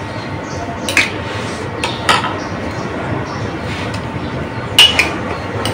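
Metal spoons clinking against ceramic plates and bowls while people eat: a few sharp clinks, about a second in, about two seconds in, and a louder pair near the end, over a steady background hiss.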